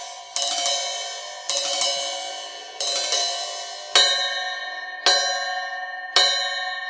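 Zildjian Planet Z 16-inch crash cymbal struck about once a second, each hit ringing out bright and high-pitched and fading before the next, six strikes in all.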